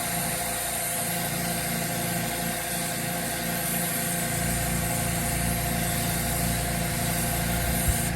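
Steady mechanical drone of a running engine or motor, an even hum with a low rumble underneath.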